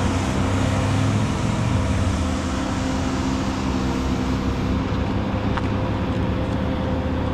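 Steady noise of road traffic with a constant low engine hum underneath.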